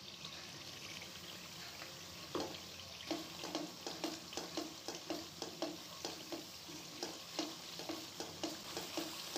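Masala sizzling as it fries in oil in a metal pot. From about two and a half seconds in, a spatula stirs and scrapes through it in quick regular strokes, about three a second.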